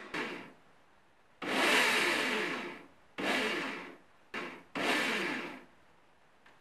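AEG electric drill, clamped upright in a vice, spinning a foam eyeball on a stick while a pencil marks centred circles on it. The drill runs in four short bursts, the first the longest at about a second and a half.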